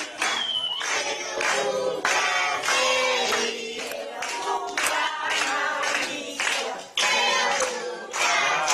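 A group of people singing together in chorus with clapping, most likely a birthday song.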